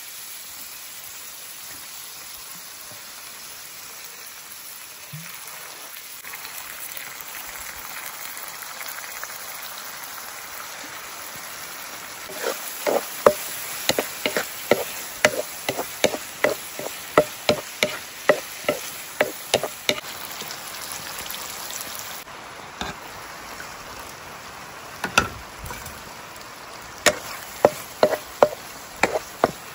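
Stir-fry of sliced pumpkin, egg and chili sizzling in a hot wok. From about twelve seconds in, a wooden spatula knocks against the pan about twice a second as the food is tossed, pauses, then starts again near the end.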